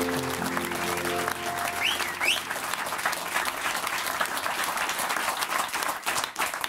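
Audience applauding in a small room, over a held chord of music that ends about a second in. Two short rising whistles cut through the clapping about two seconds in.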